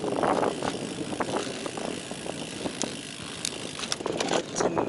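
Road bike descending at speed: a steady rush of wind and tyre noise, with scattered sharp clicks and rattles from the bike. The rush eases off in the middle and builds again near the end.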